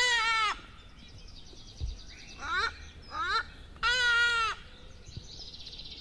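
Repeated pitched animal calls: a long arched cry at the start, two short rising cries about two and a half and three and a half seconds in, and another long arched cry about four seconds in. A faint high trill runs between them.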